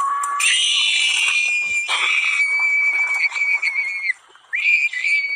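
A long, very high-pitched held scream that breaks off about four seconds in, then a second, shorter scream near the end.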